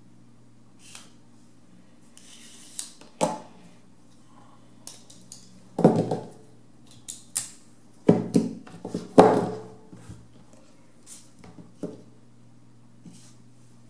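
Handling noise of two folding pocket knives and a digital caliper on a tabletop: irregular clicks, knocks and light scrapes as a knife is folded shut, the knives are set down and the caliper jaws are put to a handle. The sharpest knocks come in a cluster around the middle.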